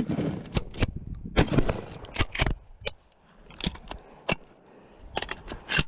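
A single blast from a Remington 870 TAC-14 12-gauge pump shotgun right at the start, ringing out for about a second, followed by a run of sharp clacks and rattles as the gun is handled, with a few more single clicks near the end.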